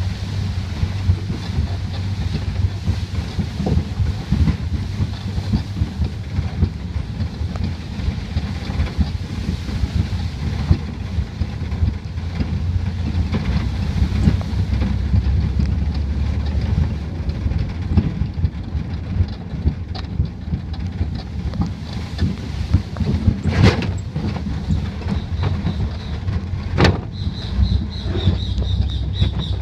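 Pickup truck driving over a rutted dirt road, heard from the open bed: a heavy, uneven low rumble with wind buffeting the microphone. Two sharp knocks come late on, about three seconds apart.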